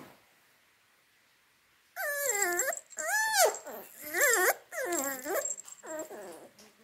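Puppy whining and yelping: five high-pitched calls, each rising then falling, about one a second, starting about two seconds in.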